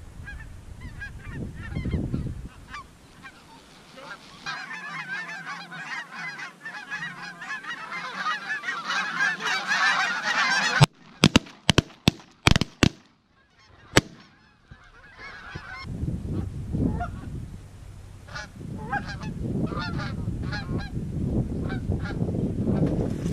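A large flock of snow geese calling overhead, the chatter building to a loud din before it breaks off suddenly. Several sharp shotgun reports follow in quick succession, then the goose calling resumes over a low rumble.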